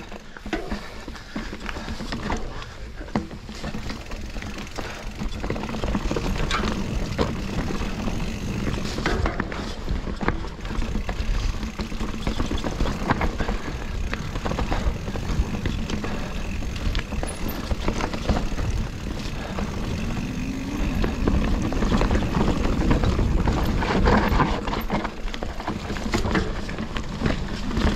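Mountain bike riding over rough singletrack: a steady rumble of tyres on dirt and roots, with frequent rattles and knocks from the bike.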